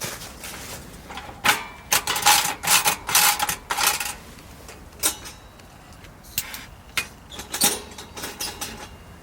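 Clicking and clattering of hard objects being handled, a dense run of knocks with a faint ringing note, then a few scattered clicks.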